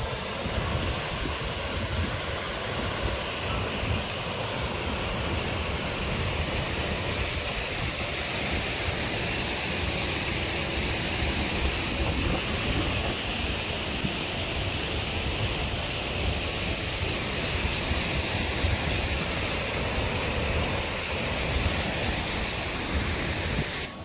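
Kalambo River water rushing over rock rapids: a steady hiss, with wind buffeting the microphone as a fluttering low rumble.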